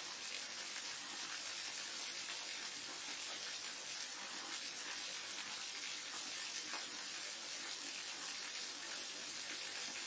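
Waterfall: a steady, unbroken rush of falling water, mostly a bright hiss with little deep rumble.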